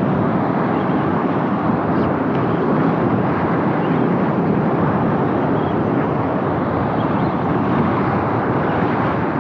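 Steady rushing noise of wind and surf at the shoreline, even throughout with no distinct events.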